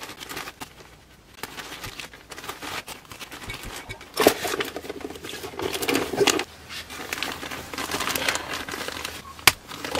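Insulated flexible air duct being handled and cut with tin snips: irregular crinkling and rustling of its plastic-and-foil layers, busiest midway, and a single sharp click near the end.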